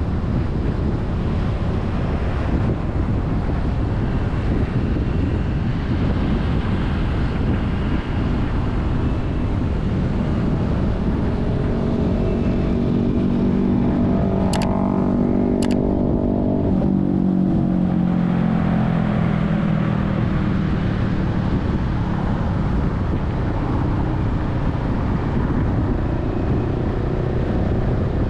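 Steady road and traffic noise heard from a vehicle moving with city traffic. About halfway through, a passing vehicle's engine grows louder and then drops in pitch as it goes by, with two sharp clicks.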